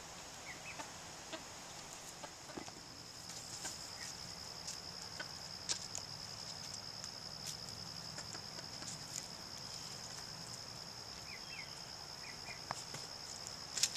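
Backyard chickens foraging with scattered soft clicks and a few short clucking calls near the end, over a steady high-pitched insect drone.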